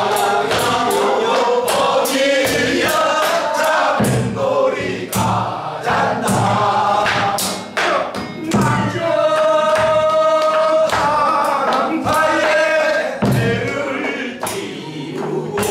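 Mixed group of men and women singing a Korean folk song (minyo) in chorus, over a steady beat of stick strokes on a rope-laced buk barrel drum. A long note is held by the singers about nine seconds in.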